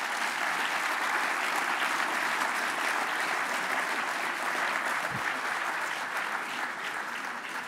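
Audience applauding: a steady round of clapping from a large crowd, easing off slightly near the end.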